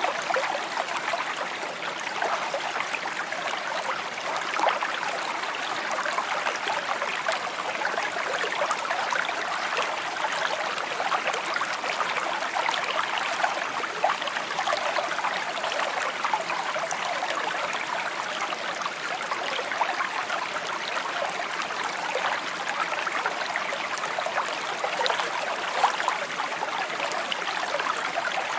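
Shallow stream babbling and trickling over stones: a steady, even rush of water flecked with small splashes and gurgles.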